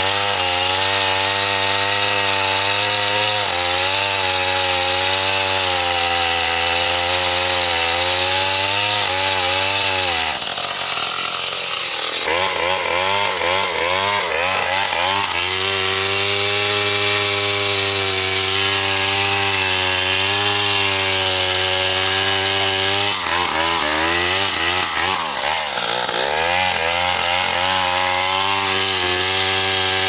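Stihl two-stroke chainsaw running at high revs while cutting into a standing tree trunk near its base; the engine pitch wavers and sags as the chain bites under load. There is a brief break about ten seconds in, after which it revs back up, and the pitch sags deeply again a little before the end.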